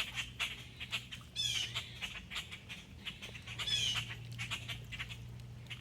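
Grackle squawking twice, two harsh high calls falling in pitch about two seconds apart, over scattered short clicks.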